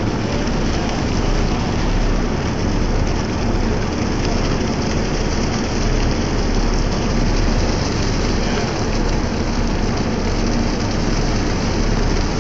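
Steady, loud rushing noise with a low rumble, heard through a phone's microphone on a boat at sea: wind, engine and water noise blended together.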